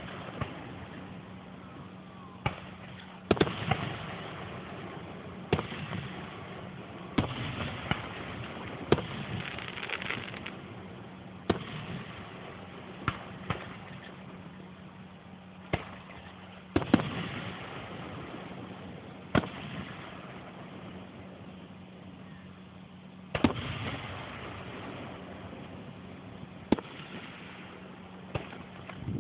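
Aerial firework shells bursting: about a dozen sharp bangs spaced irregularly, one to several seconds apart, several trailed by a second or two of lingering noise.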